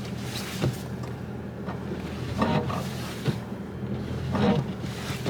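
A car engine idling as a steady low hum, with faint voices coming in briefly twice.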